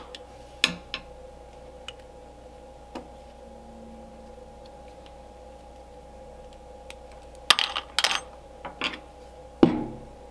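Small metal clinks and taps from a Stromberg 97 carburetor and a screwdriver being handled on a workbench during teardown. There are a couple about a second in, a quick cluster about seven to eight seconds in, and a sharper knock near the end, over a faint steady hum.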